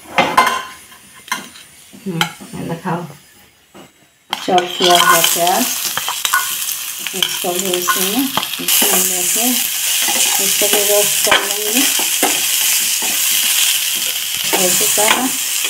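A metal spatula scrapes and stirs peanuts frying in ghee in a metal kadhai. After a brief lull, hot ghee sizzles loudly, getting louder about halfway through as chopped onions go into the pan, while the spatula keeps scraping against the metal.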